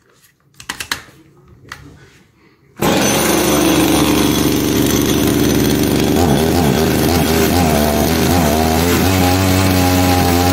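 A few knocks and clicks, then from about three seconds in a small two-stroke pruning chainsaw engine runs loudly, its speed wavering unevenly. The saw will not rev up and stalls on throttle, which the owner puts down to a carburettor fault.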